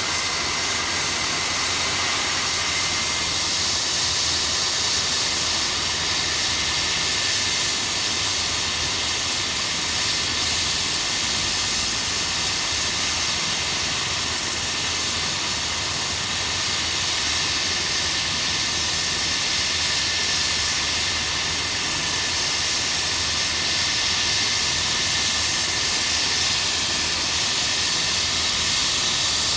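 Air ambulance helicopter on the ground with its turbines running: a steady high turbine whine over a loud hiss. A whistle tone drops slightly in pitch about three seconds in, then holds.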